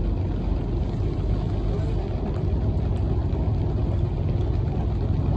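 Boat engine running steadily with a low, even rumble.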